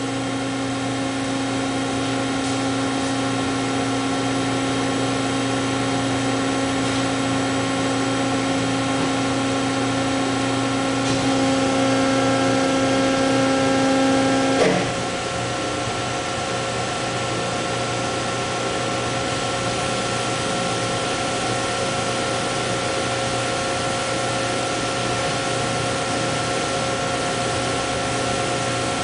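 Hydraulic system of a 795-ton up-acting compression molding press running with a steady whine as the press closes in an auto cycle and builds tonnage. About halfway through, the whine grows louder, then a sharp clunk is heard and the tone of the machine changes.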